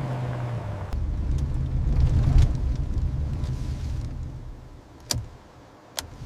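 Vehicle engine running, growing louder about two seconds in and then fading away, followed by two sharp clicks near the end.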